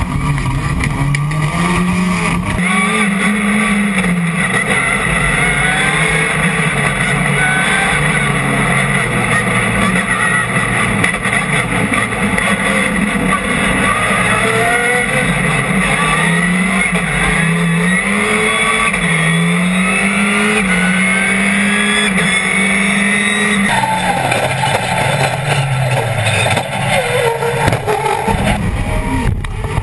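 Rallycross car's engine at full race pace, its pitch climbing and dropping again and again as it accelerates, shifts and lifts for corners, heard from inside the cabin.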